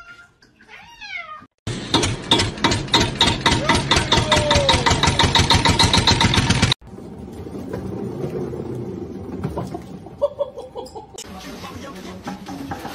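Cats meowing: two falling meows in the first second or so. Then a loud, rapid, rhythmic pulsing for about five seconds that cuts off abruptly, followed by quieter, mixed sound.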